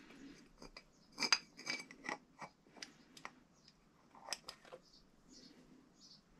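Metal clicks and clinks as a Rohloff Speedhub gearbox is pushed and turned by hand into its hub shell. The loudest clacks come about a second in and again around four seconds in.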